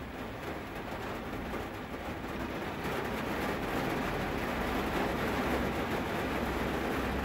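Rain falling on a car, heard from inside the cabin: a steady hiss, with a low rumble that grows louder in the second half.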